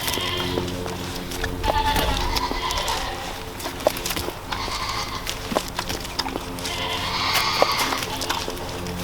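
Pygmy goats bleating several times, in separate calls spread over a few seconds, as they wait for treats.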